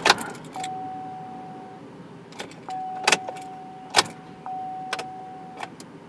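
Ignition key being turned in a 2010 Chevy Silverado 1500 that will not crank: several sharp clicks with keys jangling, and a steady electronic chime tone that sounds for about a second, stops, then comes back and holds until near the end. The starter never engages, because the engine computer receives the crank request but does not command the starter relay.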